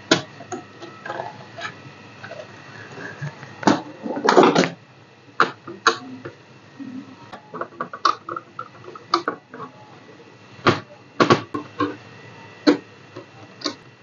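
Scattered small clicks and knocks of a screwdriver and fingers working on a laptop's metal keyboard plate while its screws are taken out. There is a louder cluster of knocks about four seconds in.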